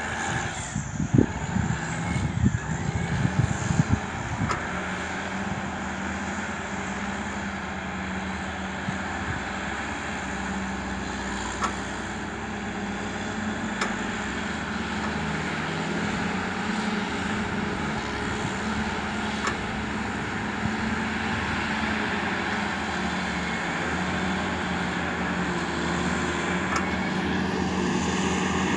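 Diesel engines of a pair of Caterpillar 627G scrapers working in tandem: a steady engine drone that grows slowly louder. A few low bumps hit the microphone in the first few seconds.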